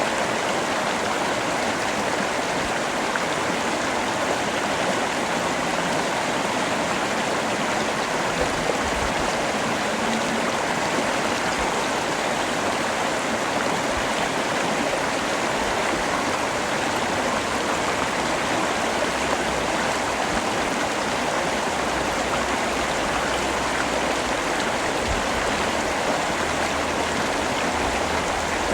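Steady heavy rain falling, an even rushing hiss with no breaks, with a low rumble underneath in the second half.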